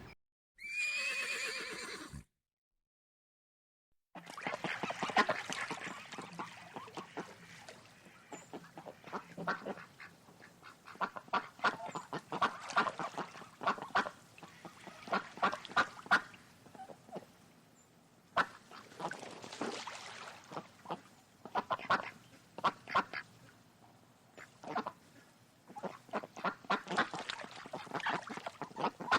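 Birds calling: many short, pitched calls in quick irregular bursts. Near the start there is a brief, different call that falls in pitch, followed by a short silent gap.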